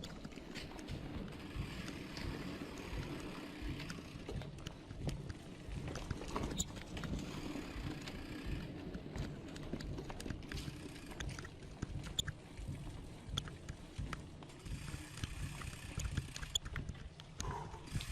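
Mountain bike moving over rough, rocky ground: a steady low rumble with scattered clicks and rattles.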